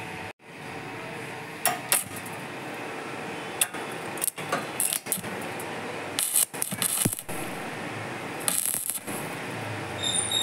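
Stick arc welding on the steel mudguard bracket: the electrode crackles and sputters unevenly, with sharper bursts of crackle every second or so as the arc is struck and held.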